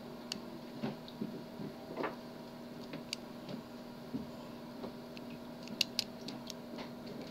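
Faint, scattered clicks and light scraping of a lock pick working the pins of a warded Master Lock padlock held under tension, pins clicking as they are lifted and set; the sharpest is a pair of clicks about six seconds in. A steady faint hum runs underneath.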